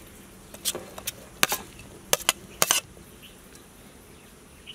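Metal spoon clinking and scraping against a steel plate as diced yellow bell pepper is knocked off onto a platter: a run of sharp metallic clinks that stops about three seconds in.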